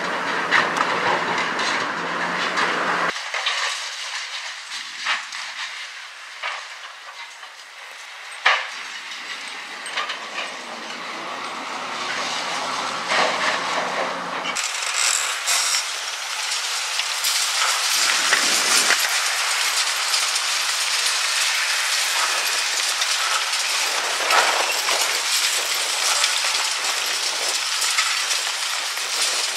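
Hydraulic concrete crusher on a Cat 345C L excavator biting into a reinforced concrete silo wall: crunching, crumbling concrete with scattered sharp cracks and falling rubble. About halfway through a steady hissing rush sets in as the dust-suppression water spray plays on the wall.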